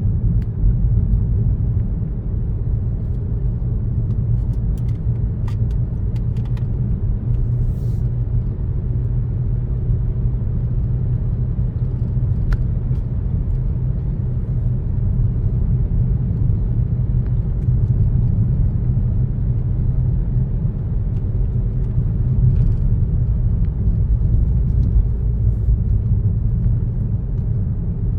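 Car driving at a steady pace: a constant low rumble of engine and road noise, with a few faint clicks in the first third and one near the middle.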